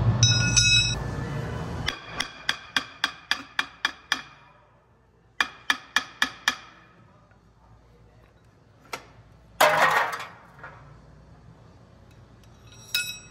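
Hammer striking steel on a forklift wheel hub: a quick run of ringing metallic blows at about four a second, then a shorter run of four more. A brief, loud rasping noise follows later.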